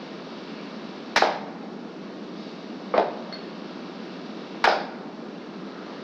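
Three sharp percussive strikes, each with a short ring, spaced about two seconds apart over a steady hiss, part of a sparse intro before the song begins.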